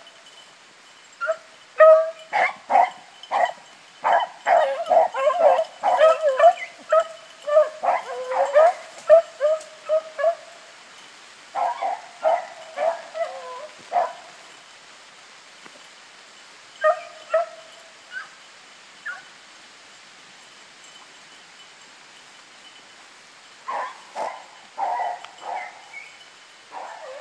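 Beagles baying in a pack, many overlapping yelps and bays thick at first, then coming in shorter runs with a lull of a few seconds before they start up again near the end.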